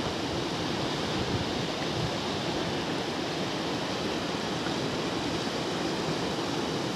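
Steady rushing of river water: a constant, even noise with no separate events.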